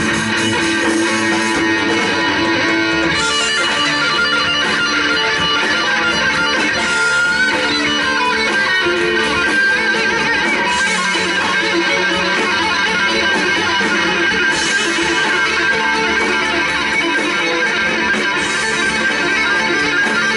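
Live instrumental rock from an electric guitar, bass and drums trio, the electric guitar to the fore with sustained, layered notes, and a high cymbal-like swell about every four seconds.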